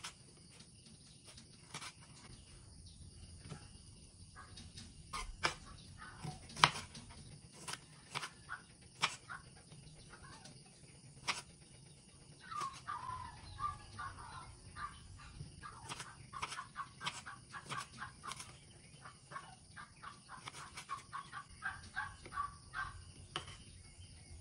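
Kitchen knife cutting through tomatoes and knocking on a wooden cutting board in irregular sharp taps. From about halfway through, short bird calls sound in the background.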